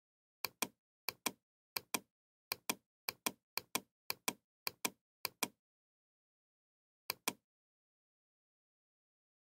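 Computer mouse button clicked about ten times, each click a pair of sharp ticks from the press and the release, in an uneven rhythm with a longer pause before the last one; dead silence between clicks.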